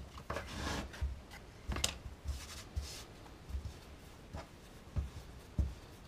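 Hands working a piece of soft bread dough on a floured wooden board, folding it inward and pressing it: irregular soft thumps mixed with brief rubbing rustles.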